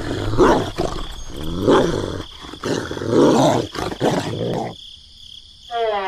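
Dubbed animal sound effect: a series of loud, harsh calls, about six in quick succession, stopping suddenly after four and a half seconds, followed near the end by a short call that falls in pitch.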